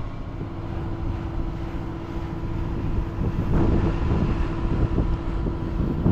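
Sailboat's engine running steadily under way, a held hum under low, rumbling wind noise on the microphone.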